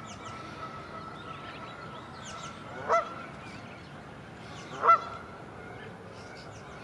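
A goose honking twice, two short calls about two seconds apart, with small birds chirping faintly.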